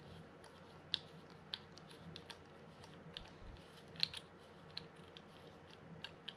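Mitchell 302 spinning reel's drag clicker giving short, sharp clicks at uneven spacing as the spool is turned by hand against the freshly reassembled drag. The clicks come from the keyed clicker washer in the drag stack, the sound the drag makes when it pays out.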